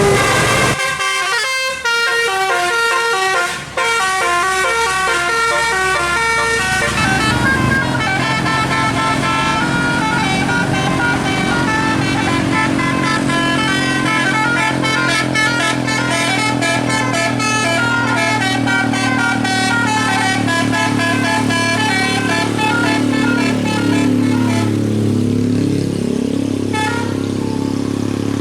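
Bus 'telolet' multi-tone musical air horn playing a fast tune of stepped notes, over a low steady hum that comes in about a quarter of the way through. A falling-then-rising swoop in pitch comes near the end.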